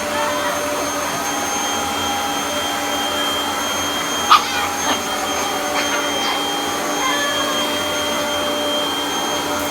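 Vacuum cleaner motor running steadily with a constant whine. Around the middle, a dog gives a few short, sharp barks or yips at it.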